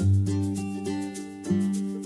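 Background instrumental music with plucked strings.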